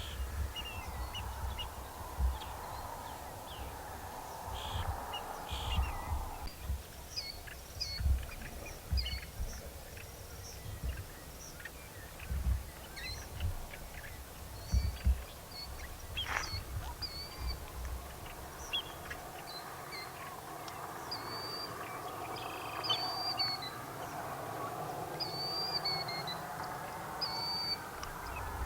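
Marsh birds calling: many short, high chirps repeated throughout, over a hazier, lower chorus of calls near the start and again in the last third, with irregular low rumbles underneath.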